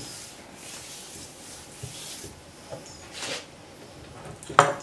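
A hand rubbing coarse salt over a raw beef liver on a wooden cutting board, a soft gritty swishing for the first couple of seconds; the salt loosens the liver's membrane for peeling. A short sharp knock near the end.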